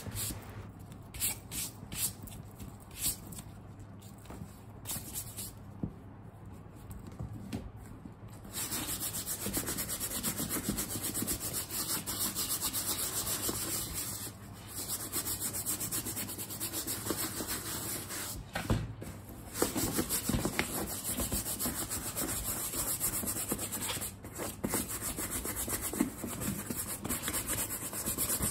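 Horsehair brush buffing pebble leather, working the protective coatings into a handbag. The first several seconds are single separate strokes; from about eight seconds in the brushing turns fast and continuous, with a few brief pauses.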